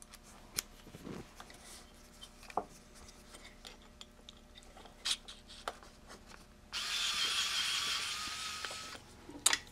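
Light clicks of a screwdriver bit on small screws, then a small cordless electric screwdriver whirring steadily for about two seconds near the end, with a faint slowly rising motor whine, as it backs screws out of a metal amplifier case.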